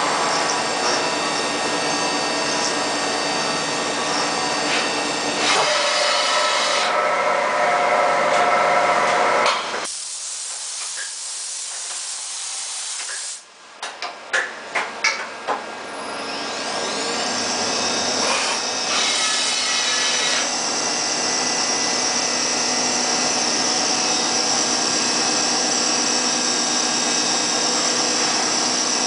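High-speed CNC milling machine machining an aluminium part: machine running with several steady whining tones. Near the middle it goes quieter, with a few sharp clacks. Then a whine rises and holds high and steady.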